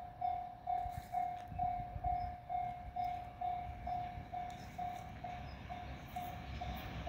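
Japanese level-crossing warning bell ringing, one electronic clanging tone repeated about twice a second. Under it, the low rumble of an approaching JR Freight EF210 electric locomotive and its container train grows toward the end.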